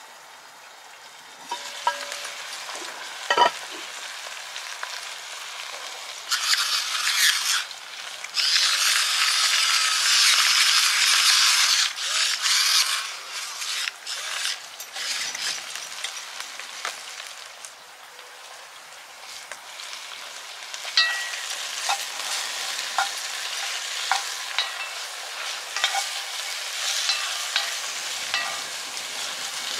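Food sizzling in a hot cast-iron Dutch oven over a log fire, at its loudest in two long bursts about six to twelve seconds in. Later come a string of sharp metal clinks against the pot.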